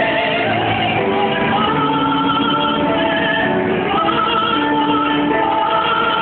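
Operatic singing, long held notes with vibrato moving from pitch to pitch without a break.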